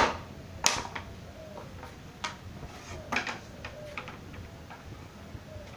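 A few sharp knocks and clicks at irregular intervals, the loudest at the start and about two-thirds of a second in, typical of wood and tools being handled on a workbench; no saw or motor is running.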